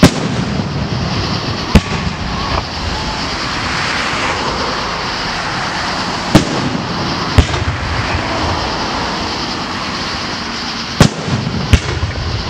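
Aerial firework shells bursting: six sharp bangs at irregular intervals, two of them close together near the end, over a steady background noise.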